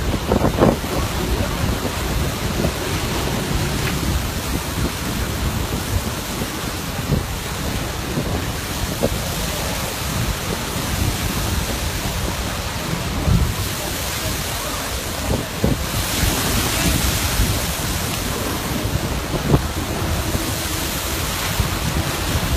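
Wind buffeting the microphone over crashing surf and a steady deep rumble and hiss where molten lava pours into the sea and flashes to steam, with a few sharp thuds. The hiss grows brighter about two-thirds of the way through.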